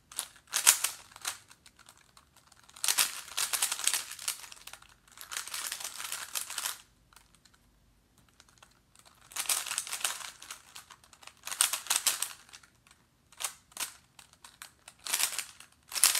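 A 3x3 Rubik's Cube turned by hand, its plastic layers clicking and clacking in quick runs of turns. About seven runs of a second or two each are separated by short pauses, the longest about two-thirds of the way through, as algorithms for the last layer are worked through.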